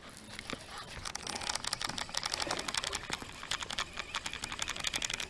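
Fishing reel being cranked in: a fast, dense run of small clicks that starts about a second in.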